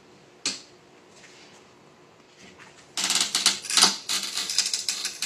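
A geode being cracked open: one sharp click, then from about three seconds a dense run of rapid, loud clicking and crunching as the stone's shell gives way.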